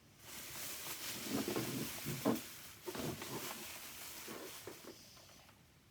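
Rustling and handling noise with a few light knocks as objects are moved about, fading out near the end.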